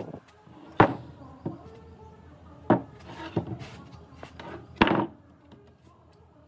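Pieces of solid wood knocking together as they are handled: three loud, sharp knocks about two seconds apart, with softer knocks and rubbing in between.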